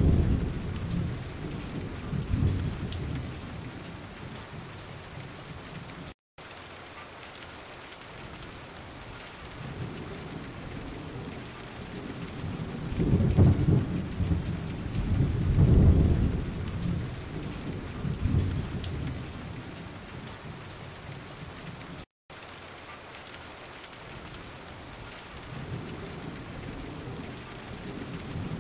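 Steady rush of a brown, fast-flowing river running high after heavy typhoon rain. Gusts of wind rumble on the microphone several times, strongest about halfway through, and the sound cuts out briefly twice.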